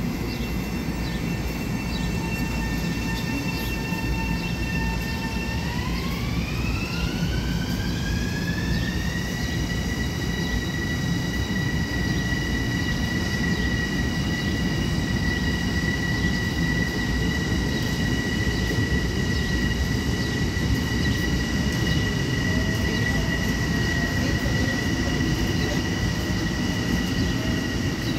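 M7 electric multiple-unit train pulling out of the station. A high whine rises in pitch about six seconds in and then holds steady, over the continuous low rumble of the cars.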